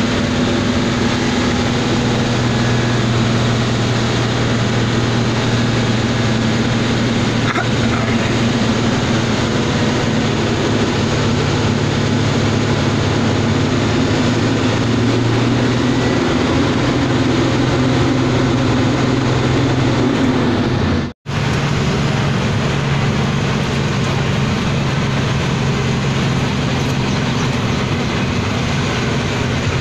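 A goods truck's diesel engine running steadily under way, heard from inside the cab, with tyre and road noise. The sound cuts out for an instant about two-thirds of the way through.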